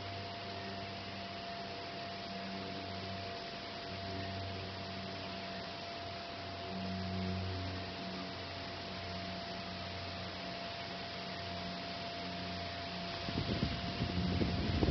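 A steady electrical hum with an even hiss behind it. About 13 seconds in, gusting storm wind starts buffeting the microphone with an uneven low rumble.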